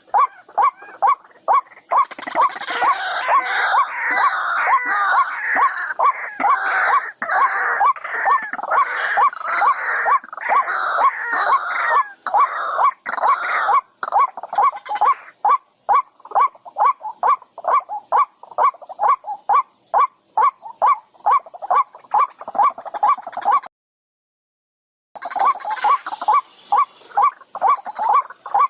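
A bird calls over and over in short, evenly spaced notes, about three a second. For the first half a dense chatter of many birds runs over it. Near the end the sound cuts out for about a second and a half, then the calling resumes.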